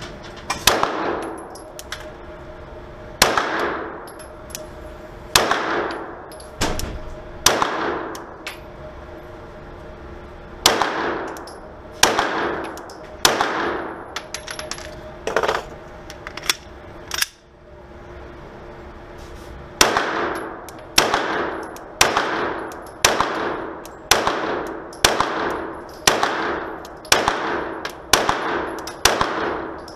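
Glock 17 9mm pistol fired shot after shot in an indoor range, each shot cracking and ringing off in the range's echo. The shots are spaced out at first and, after a short pause in the middle, come in a steady string of about one a second. A steady hum underlies the gaps between shots.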